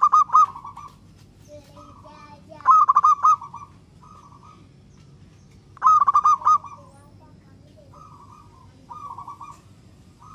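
Zebra dove (perkutut) cooing: three loud phrases of rapid rolling coo notes about three seconds apart, followed by two softer, shorter coos near the end.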